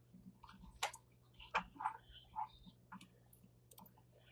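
Faint scattered clicks and taps of small plastic kit parts and connector wires being handled and fitted, over a faint steady low hum.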